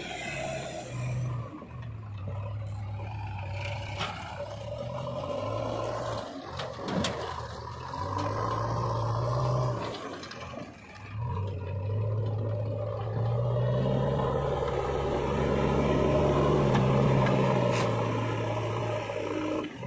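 JCB 3DX backhoe loader's diesel engine running and revving up and down as the front loader bucket digs into soil and lifts it, with a few short knocks of the bucket along the way.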